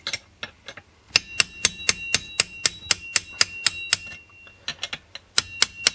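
A claw hammer striking a steel punch held against a Giantz chainsaw's clutch, driving it tight onto the crankshaft thread: rapid metal-on-metal taps, about four a second, each with a short ring. The strikes run in two bursts with lighter taps between them a little after the middle. The thread is unusually tight, which the owner puts down to a badly cut thread.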